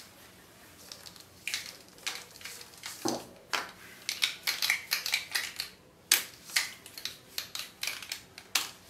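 Plastic marker pens being picked up and handled on paper: a string of irregular light clicks and taps as the pens knock against each other and the sheet.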